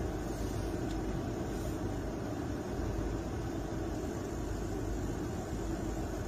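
Steady low rumble of an idling engine, heard from inside a stopped car's cabin.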